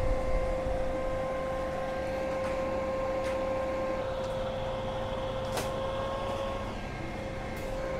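Rinnai RH-126B cooker hood's double sirocco fan running at its top speed, speed 3: a steady airy hum with a steady motor whine. A few brief crackles come from a paper sheet held against the grease filter and pulled by the suction.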